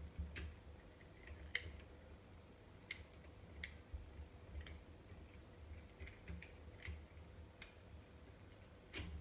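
Faint, irregular clicks and light knocks from a plastic child-safety cabinet lock being handled and tested on cabinet door handles, with a slightly louder knock near the end.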